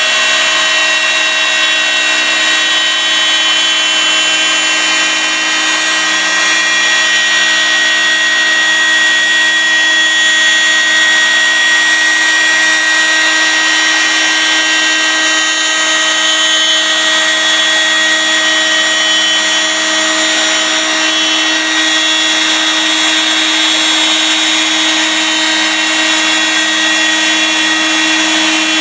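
Electric spindle of an 8' x 4' rack-and-pinion CNC milling machine routing curved slots through a sheet. It gives a steady whine of several held tones over a constant cutting hiss.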